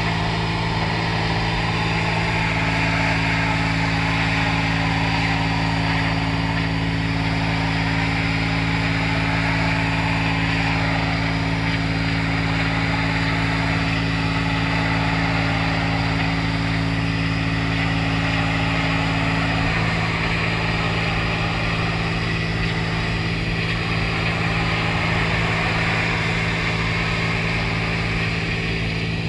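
Hot-water high-pressure washer working at about 250 bar: a steady motor-and-pump hum under the hiss of the water jet blasting a brick wall. One tone in the hum drops out about two-thirds of the way through.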